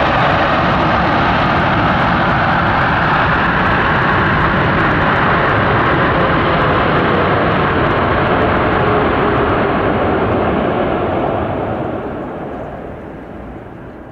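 Jet airliner landing on a wet runway: a loud, steady rush of engine noise with a faint tone slowly falling, fading away over the last few seconds.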